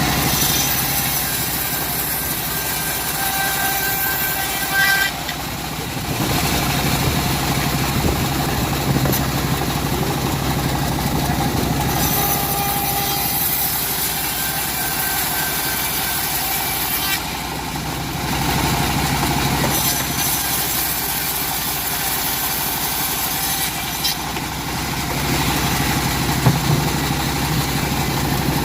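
Engine-driven wood saw running steadily while slicing timber. Its sound changes abruptly every few seconds.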